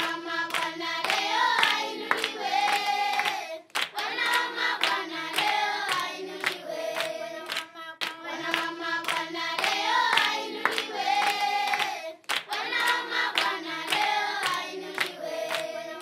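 End-screen music: a looping tune with a steady handclap beat and a sung melody, the same phrase coming round twice.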